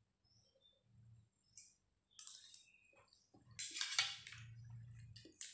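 Quiet eating sounds: chewing rice noodles, with the clicks and scrapes of a fork and spoon on a metal tray, loudest about four seconds in.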